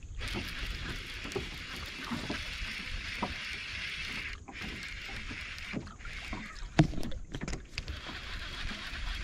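Small fishing boat under way: a steady rush of water along the hull, with scattered light knocks on the boat and one sharper knock about seven seconds in.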